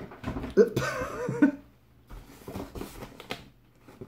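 A large cardboard box being pulled across a surface and lifted, with cardboard scraping and squeaking about a second in, then a few knocks as it is handled.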